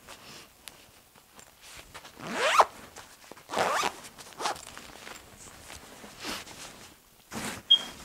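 Zipper on a fabric packing pouch being zipped shut, two long loud zips about two and three and a half seconds in, then shorter tugs with fabric rustling and a sharp click near the end.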